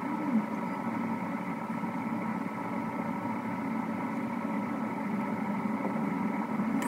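Steady background hum with a few faint even tones and no distinct events.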